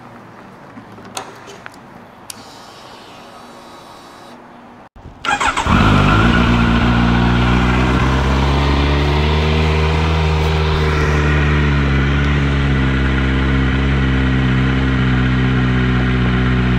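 2019 Kawasaki Z900's inline-four engine cold-started through an SC-Project CRT titanium slip-on exhaust. After a few faint clicks, it catches about five seconds in following a brief crank. It then settles into a loud, steady fast idle that lifts slightly and eases back.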